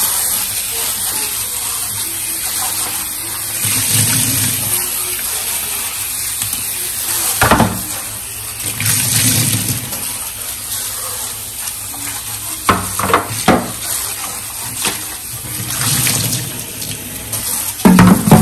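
Kitchen tap running into the sink while it is washed, with a few sharp knocks, one about seven seconds in, a cluster about two-thirds through and more near the end.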